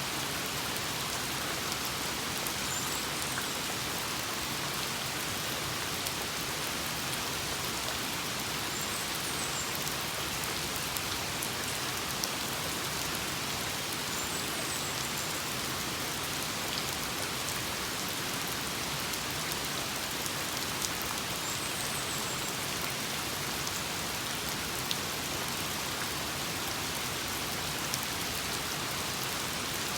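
Steady rain, an even hiss with scattered drip ticks. A faint high chirp recurs about every six seconds.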